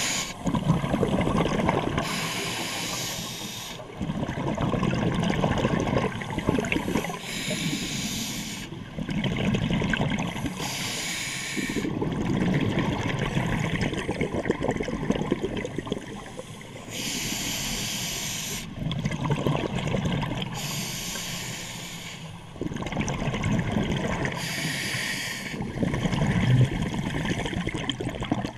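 Scuba diver breathing through a regulator underwater: a short hissing inhale alternates with a longer stretch of bubbling exhaled air, about six breaths, a few seconds apart.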